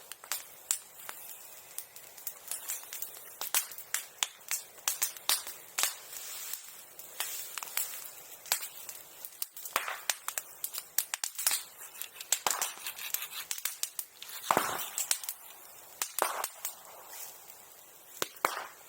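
Bonfire crackling and popping, with irregular sharp snaps throughout and one louder pop about three-quarters of the way through.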